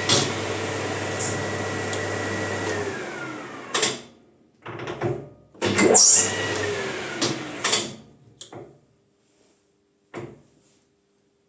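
Maximat metal lathe spinning with a steady whine and hum, then winding down with falling pitch as the bicycle disc brake fitted to its spindle is applied. After a few knocks it spins up again and is braked down a second time.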